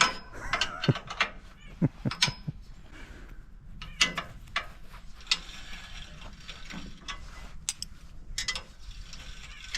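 Irregular clicks, clinks and knocks of metal parts being handled and adjusted on a Wood-Mizer LT15 portable sawmill, with no steady rhythm.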